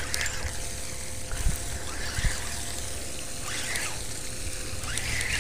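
Steady trickling water under an outdoor hiss, with two soft low thumps about a second and a half and two seconds in.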